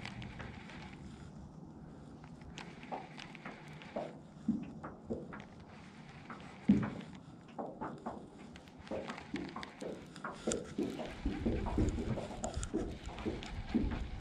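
Scattered faint clicks and knocks as a baitcasting rod and reel are handled in a small jon boat. Low wind rumble on the microphone comes in during the last few seconds.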